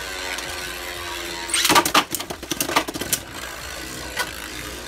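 Mirage Fafnir Beyblade spinning on the plastic stadium floor with a steady whir. About one and a half seconds in, a second top, Rage Longinus, comes in with a loud burst of scraping clatter. The two metal-and-plastic tops then clash with sharp clacks every half second or so.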